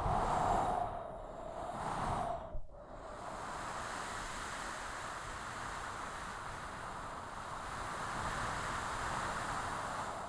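Strong desert storm wind blowing, with a hiss of sand. It gusts over the first two seconds, drops out briefly about two and a half seconds in, then blows steadily.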